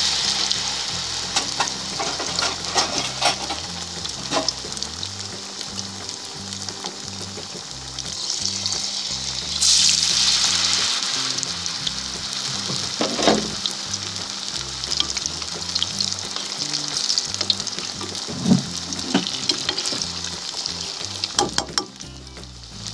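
Batter-coated potato pinwheels deep-frying in hot oil on a low flame: a steady sizzle with scattered pops and spatters, growing louder about ten seconds in.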